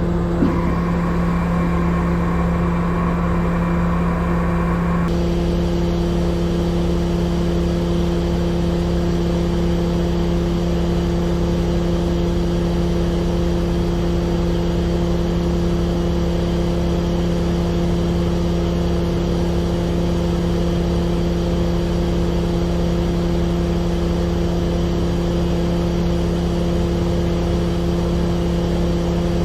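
A vehicle engine running at a steady speed, with a higher whir over it that stops about five seconds in.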